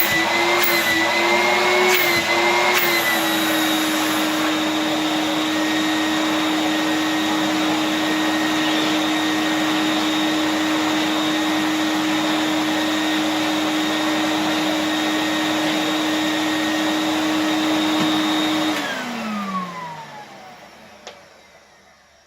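Numatic George GVE370 vacuum cleaner running, its motor tone wavering slightly for the first few seconds and then holding steady. About three-quarters of the way through it is switched off, and the motor winds down with a falling pitch and fades away.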